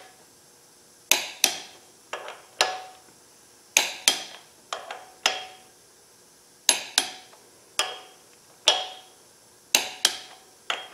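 Click-type torque wrench set to 60 ft-lb clicking on small-block Chevy flywheel bolts, sharp metallic clicks in quick pairs every second or two, each with a short ring. The wrench breaks over almost at once because the bolts are already at final torque on this check pass.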